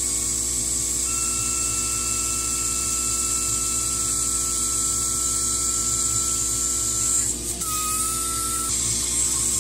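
CO2 laser cutter working through half-inch poplar: a steady hiss of air assist over the hum of its blower and pumps, with a thin steady whine as the head travels along the cut. The whine breaks off about seven seconds in and returns briefly.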